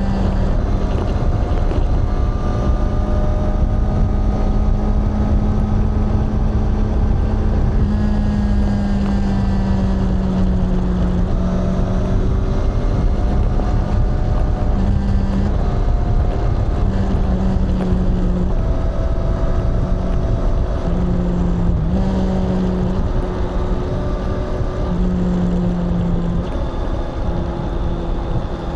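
Honda CBR650R's inline-four engine and exhaust running at a fairly steady engine speed. Its pitch shifts slightly up and down in small steps, over a heavy low rumble.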